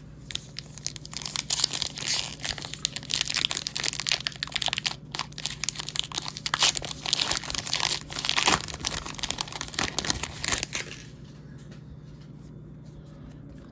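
Paper trading-card pack wrapper, in the old wax-paper style, being torn open and crinkled by hand: a dense run of crackling and tearing that stops about eleven seconds in, leaving a faint steady hum.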